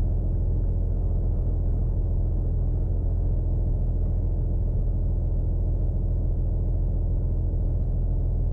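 Tuned Toyota Supra MK4's 2JZ straight-six engine running at a steady, unchanging engine speed, a deep, even rumble with no revving.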